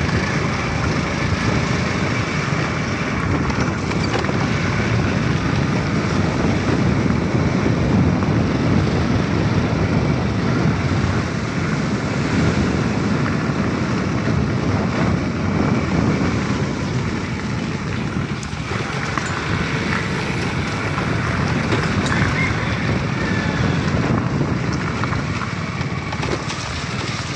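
Motorcycle riding along at a steady pace: a steady rush of wind over the microphone, mixed with engine and road noise.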